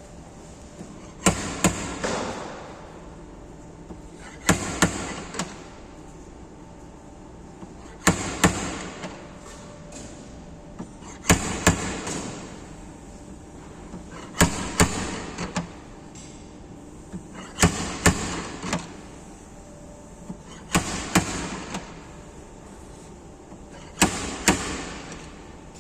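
GYS 39.04 steel dent repair device working on bodywork in a repeated cycle. Roughly every three seconds comes a pair of sharp cracks about half a second apart, then a short fading rattle; this happens eight times.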